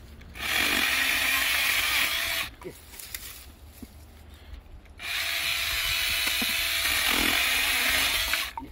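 Electric saw cutting through wood in two runs, about two and three seconds long, each starting and stopping abruptly.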